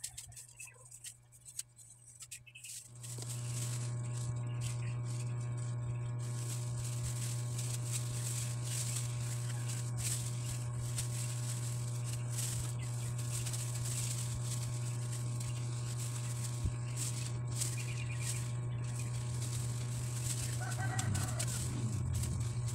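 A steady low electrical hum with a buzzy edge starts about three seconds in and keeps going, with a chicken clucking briefly near the end.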